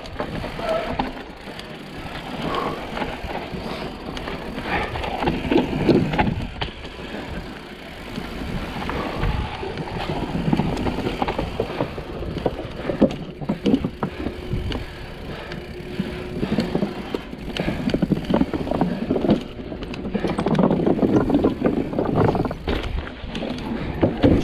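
Mountain bike descending a dirt singletrack: tyres rolling and crunching over dirt and stones, with the bike rattling and clattering over bumps and knocking across wooden plank features.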